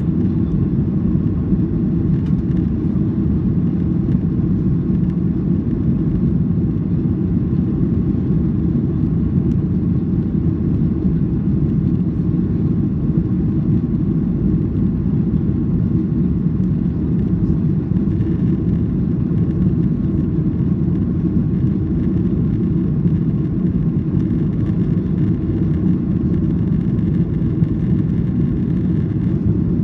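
Cabin noise of a Boeing 737-800 climbing after takeoff: its CFM56-7B turbofan engines and the airflow make a steady low rumble.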